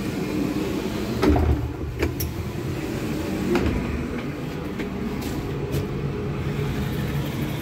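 Steady low rumble inside a passenger railway coach, with a few sharp knocks about one, two and three and a half seconds in as the connecting gangway between coaches is crossed. The first knock is the loudest and carries a low thud.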